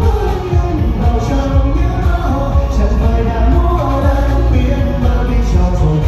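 Vietnamese pop song at rehearsal volume, with a steady drum and bass beat under a moving melody line.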